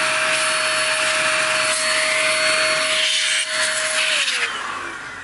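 Electric air duster blowing a jet of air onto a laptop's cooling fans to clear the dust: a steady motor whine under a loud rushing hiss. About four seconds in it is switched off, and the whine falls away as the motor winds down.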